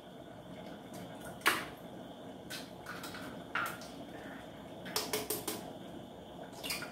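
Eggs being cracked into a blender jar: a handful of sharp taps and clicks of shell against the jar, the loudest about a second and a half in, with a quick run of them about five seconds in.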